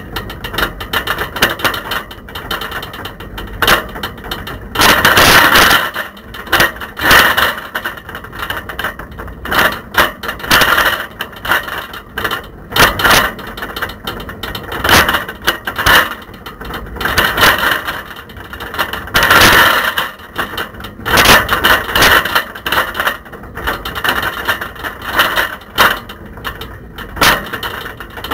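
A camera rattling and knocking in a bicycle basket while the bike is ridden over a wet, bumpy road, in loud irregular bursts: really rattly and noisy.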